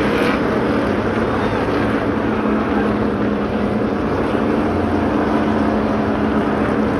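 Field of NASCAR Cup stock cars' V8 engines running on the speedway, a steady loud drone with a held low note.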